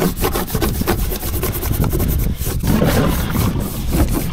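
Scrubbing the dirty hull of a boat clean: rapid back-and-forth rubbing strokes, with a short pause a little past halfway.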